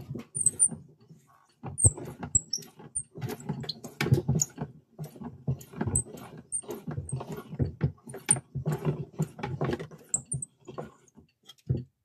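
Wind-up gramophone being handled: irregular knocks, scrapes and small high squeaks as the record and the winding crank are touched and moved.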